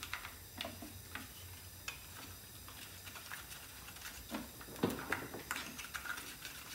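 Scattered light clicks and taps of a plastic cooling fan being handled and seated onto the flywheel of a Briggs & Stratton Intek V-twin, with a few louder knocks about five seconds in.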